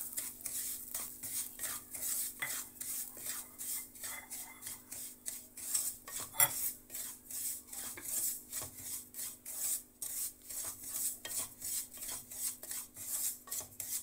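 Wooden spatula stirring and scraping semolina around a nonstick pan as it roasts in ghee, in quick strokes about three a second. One sharp knock about six seconds in, and a faint steady hum underneath.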